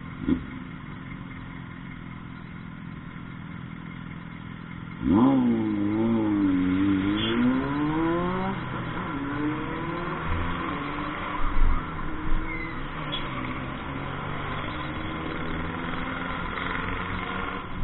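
Motorcycle engine running low and steady, then about five seconds in it revs up and accelerates, its pitch dipping and climbing again over the next few seconds before settling into steady running noise. A couple of low thumps come near the middle.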